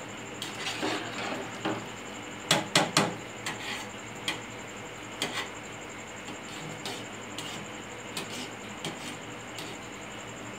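Metal ladle stirring rice in a metal cooking pot, scraping and knocking against the pot's sides: a few scrapes, then three sharp clacks about two and a half seconds in, followed by lighter scattered taps.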